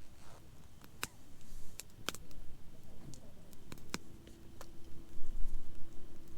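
Wood campfire crackling, with sharp snaps and pops at irregular intervals. A faint steady tone comes in about two-thirds of the way through.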